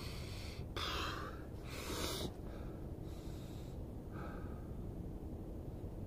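A man breathing in deeply through his nose, savouring the smell of the forest air: three long breaths, the first two the loudest.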